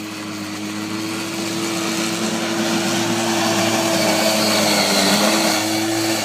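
Arctic Cat Kitty Cat youth snowmobile's small engine running at steady revs, growing gradually louder.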